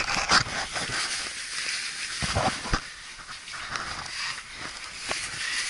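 Clothing and gear rustling and scraping against rock as a caver squeezes through a narrow crevice, with a few short knocks.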